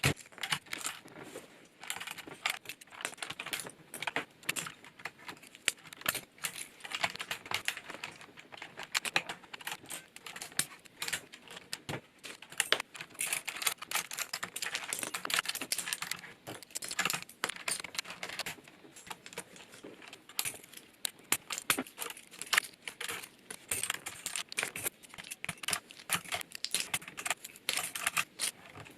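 Stock ABS keycaps being pulled off a Corsair K70 LUX RGB mechanical keyboard one after another: a continuous run of small, sharp plastic clicks and clacks as the caps pop off the switch stems.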